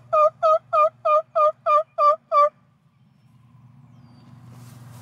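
Turkey yelps: a quick run of about nine evenly spaced, loud, pitched notes, roughly three to four a second, that stops about two and a half seconds in.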